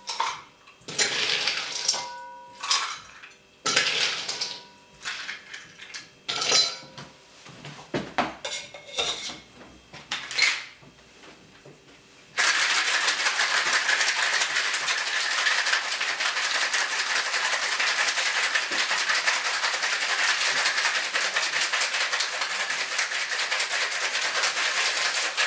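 Ice clinking and clattering into a metal cocktail shaker in separate knocks. About twelve seconds in, the sealed shaker is shaken hard, the ice rattling in a steady dense stream for about 13 seconds. It is shaken harder than usual to break up whole chunks of fresh pineapple.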